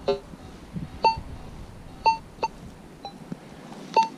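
AKA Signum MFD metal detector giving short, repeated high target beeps, about one per sweep of the coil and sometimes doubled, with a single lower tone right at the start. The detector is hitting an aluminum target buried about 6 inches deep in black sand.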